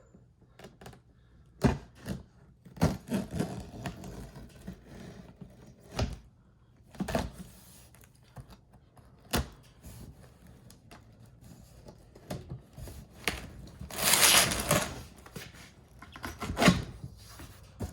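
Cardboard shipping box being opened and unpacked by hand: scattered knocks and thumps with rustling of cardboard and packing, and a longer rustling scrape about fourteen seconds in that is the loudest sound.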